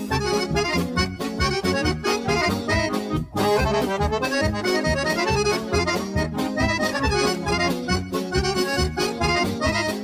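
Lively accordion-led folk dance music with a fast, steady beat, in the style of a Serbian kolo. The tune breaks off for an instant a little over three seconds in, then carries on.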